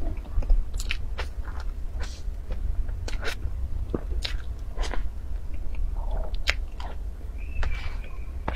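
Mouth sounds of eating soft cream cake: wet, irregular chewing and smacking clicks. Near the end, a metal spoon scrapes frosting across the cake board with a brief thin squeak.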